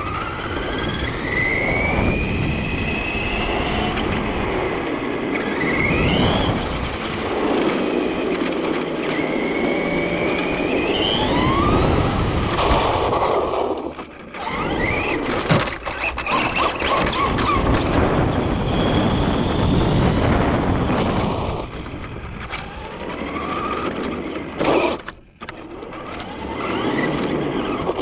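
Traxxas RC truck driving fast on pavement, heard from on board: tyre and wind noise with a drivetrain whine that rises in pitch again and again as it speeds up, and drops out briefly twice when it lets off.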